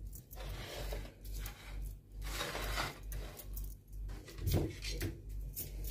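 Quiet kitchen handling noises: soft repeated strokes with light clinks, about once or twice a second, with a slightly louder one about halfway through.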